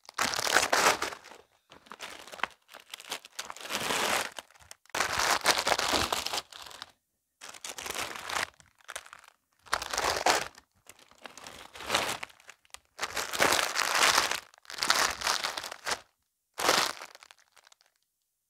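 Plastic packets of braiding hair extensions crinkling and rustling as they are rummaged through, in about ten bursts of handling with short pauses between.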